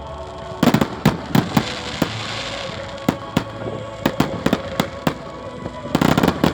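New Year's fireworks and firecrackers going off: irregular sharp bangs, bunched in quick volleys just under a second in and again near the end, with a fizzing hiss about two seconds in.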